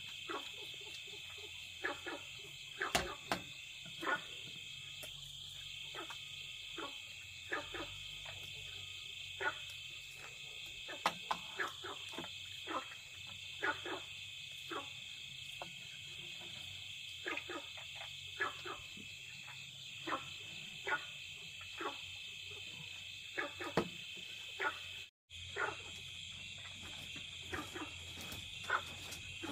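Chorus of crickets trilling steadily, with many short frog calls scattered over it. The sound cuts out for a moment late on.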